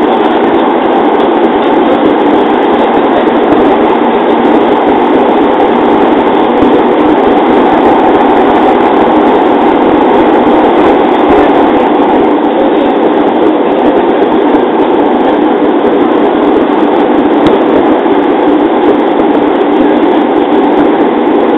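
Steady running noise of a JR 205 series electric train, heard from inside the carriage as it travels along at speed.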